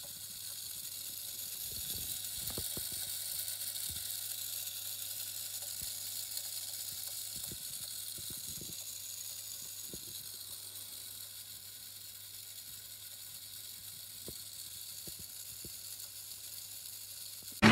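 Faint steady hiss with a low steady hum and a few soft scattered clicks: quiet room tone of a handheld phone recording, without music.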